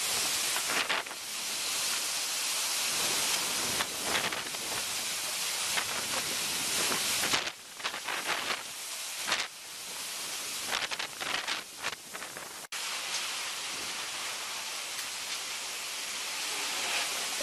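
Typhoon wind and driving rain with storm-surge spray make a dense, steady hiss. It surges and falls unevenly for a few seconds in the middle and cuts out for an instant about twelve and a half seconds in.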